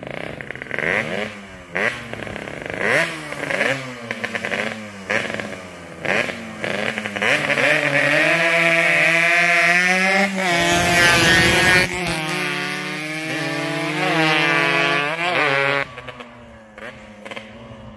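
Yamaha RX-King two-stroke motorcycles revving in short rising blips about once a second, then accelerating hard up through the gears and passing close by between about ten and twelve seconds in, with engine pitch climbing again before fading away near the end.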